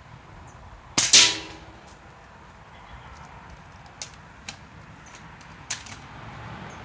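An air gun fires once about a second in: a sharp shot with a short ringing tail. Three fainter sharp clicks follow a few seconds later.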